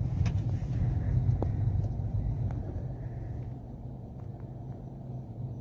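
Low, steady rumble of a car's engine and road noise heard inside the cabin, easing off a little past halfway, with a few faint clicks.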